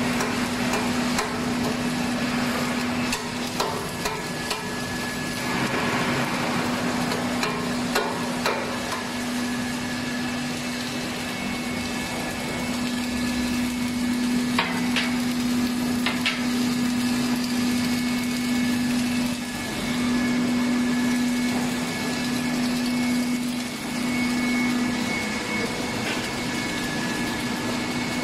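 ZHJ welding H-beam fabrication machine running, submerged-arc welding the flange-to-web seam: a steady low hum with a faint high whine, over a noisy background, with scattered sharp ticks and clicks.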